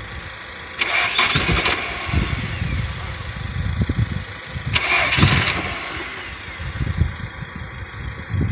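Nissan 240SX engine cranking and sputtering, catching and firing unevenly, with two louder surges about a second in and about five seconds in. It is a long-dormant engine, nine years unstarted, just fed by a newly fitted fuel pump and not yet running smoothly.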